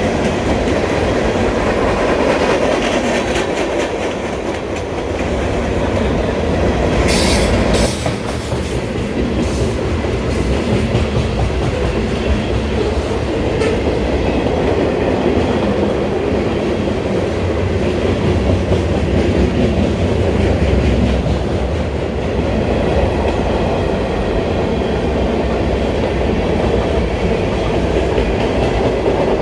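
Freight cars of a long manifest train rolling past, a steady rumble with wheels clicking over the rail joints. A few brief sharp metallic noises come about a quarter of the way through.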